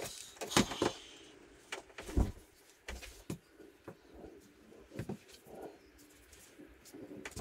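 Scattered knocks, clicks and rustles of tools and parts being handled, with a heavier thump a little over two seconds in.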